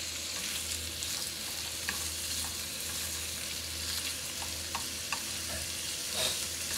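Thin-sliced pork belly sizzling in a hot frying pan, with wooden chopsticks clicking against the pan now and then as the meat is stirred and turned. A low steady hum runs underneath.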